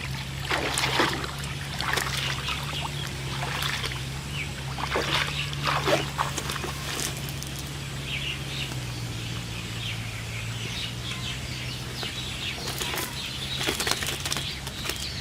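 Pond water splashing and sloshing in irregular bursts, over a steady low hum that drops slightly in pitch partway through.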